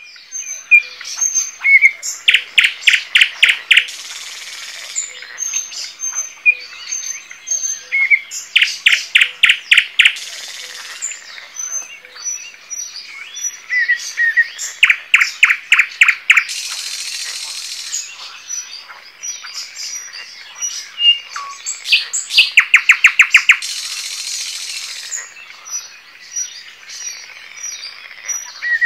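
Songbirds singing at dawn. One bird repeats a loud phrase of fast, evenly repeated notes every six or seven seconds, and other birds chirp more softly in between.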